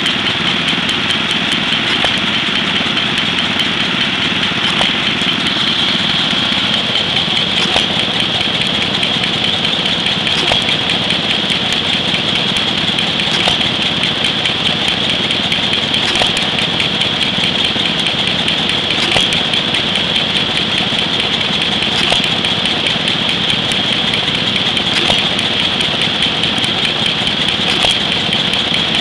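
Stover CT-2 single-cylinder hit-and-miss engine running: a firing stroke about every three seconds, coasting on its flywheels with light rapid ticking between hits. A steady high-pitched whine sits under it.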